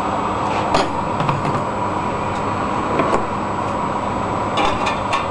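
Steady rushing hiss under a few light clicks and taps: one about a second in, one near three seconds, and a quick run of them near the end.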